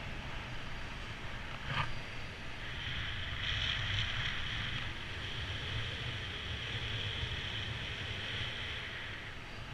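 Wind rushing over the camera microphone of a paraglider pilot in flight, a steady hiss with low buffeting rumble. A brief click comes about two seconds in, and a higher, brighter hiss joins about three seconds in and fades near the end.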